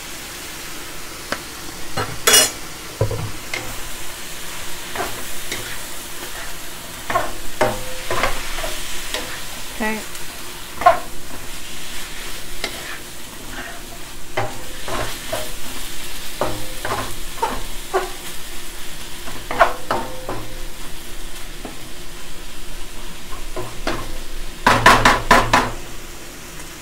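Shredded chicken, shrimp and onion sizzling in a wok with soy sauce and pepper as a wooden spatula stirs and scrapes them, in frequent short strokes against the pan. A louder run of scraping and knocking comes near the end.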